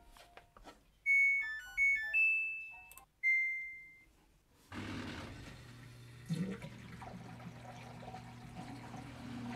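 Samsung top-load washing machine's control panel playing its power-on chime, a quick run of electronic beeps, then one longer beep at a button press. About five seconds in, the drain pump starts with a steady hum and water rushing through it.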